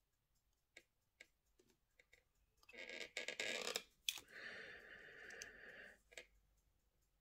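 Faint small clicks and handling noise from steel tools and parts on a watch movement in its holder as the crown wheel is pressed into place. There is a sharper click about four seconds in, then a short stretch of soft rubbing.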